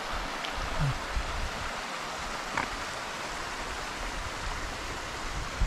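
Mountain stream running over rocks in a valley, a steady rush of water from a low winter flow, with a few soft low thumps.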